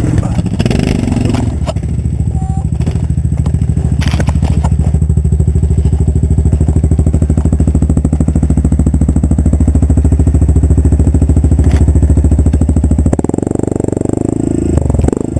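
ATV engine running under load at steady, high revs, then easing off suddenly about two seconds before the end.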